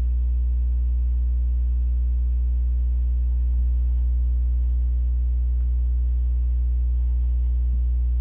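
Steady low electrical hum, mains hum with a string of overtones, unchanging throughout.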